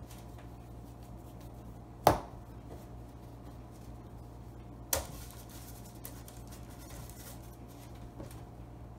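Hands working bread dough on a plastic cutting board: two sharp knocks on the board about three seconds apart, the first the louder, then soft rubbing and scuffing as a dough ball is rolled between the palms. A steady low hum runs underneath.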